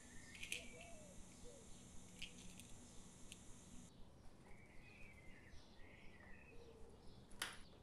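Near-silent room tone with faint bird chirps and a few soft clicks from things handled on a table, the sharpest near the end.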